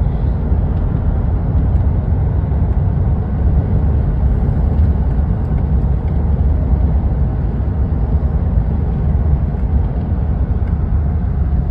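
Steady road noise inside a moving car's cabin at highway speed: an even low rumble of tyres and engine with no distinct events.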